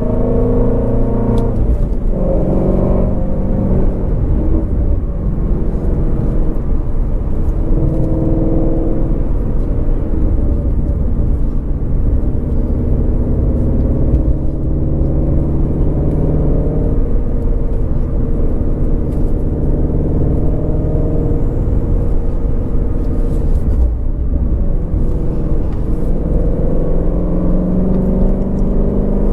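A 2019 Shelby GT350R's 5.2-litre flat-plane-crank V8 running while the car is driven, its note climbing and dropping several times as the throttle is worked, over a steady low rumble.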